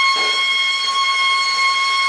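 Gas torch burning steadily against a lead-filled body panel: a loud, constant high whistle with overtones over a light hiss. A brief soft scrape about a quarter second in as the wooden paddle works the solder.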